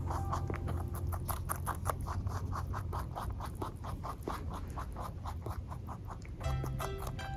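A Netherland dwarf rabbit chewing food, a fast, even run of small crunching ticks, about six a second. Soft background music plays underneath.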